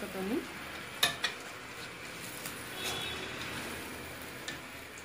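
Metal spatula stirring and scraping spiced, batter-coated shredded cabbage frying in oil in a pan, with a soft sizzle and two sharp metal knocks on the pan about a second in.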